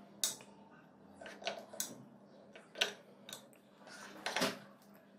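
A knife cutting through a sponge cake and knocking against a glass serving dish: a few light, scattered clicks and taps, with the clearest ones near the end.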